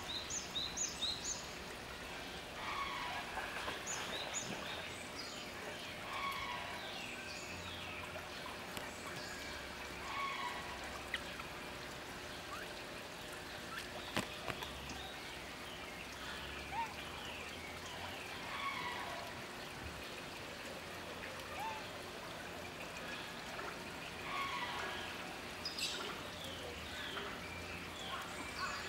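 Water trickling steadily out of the end of a plastic drainpipe, with short high chirping calls coming now and then.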